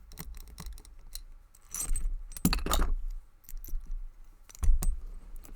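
Brass padlock being handled: a string of small metallic clicks and clinks, with louder rattling clatters about two seconds in and again near the end.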